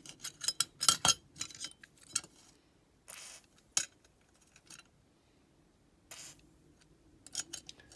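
Small die-cast toy-car wheels and rusty steel axles clicking and clinking against a container as they are handled, with two short aerosol hisses of rust-dissolver spray, about three seconds in and about six seconds in.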